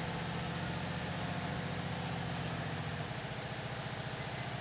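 A motor running steadily with a low, evenly pulsing hum.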